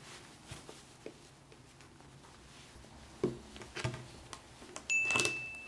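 Faint rustling and light taps of a metal grooming comb being worked through a cat's long, matted coat. About five seconds in there is a short, louder rush of noise, and a thin steady high tone begins.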